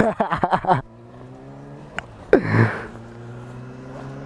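Cruiser motorcycle engine running steadily under way, its pitch slowly rising as it picks up speed. A pulsing burst of a voice comes in the first second, and a shorter one about two and a half seconds in.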